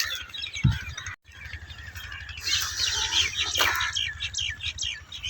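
Small birds chirping in quick repeated notes, growing busier in the second half, with a low thump early on and a brief dropout about a second in.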